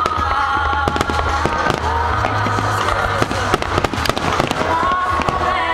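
Dense barrage of fireworks: many sharp bangs and crackles in quick, irregular succession, over music with held notes.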